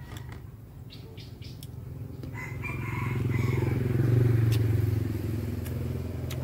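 A motor vehicle's engine passing by, growing louder to a peak about four seconds in and then fading.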